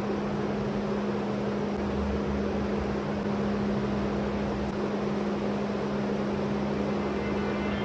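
Steady machine noise with a constant low hum, unchanging throughout.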